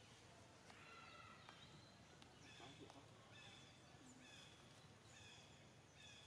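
Faint, repeated short high-pitched animal calls, about one or two a second, over a low background hiss.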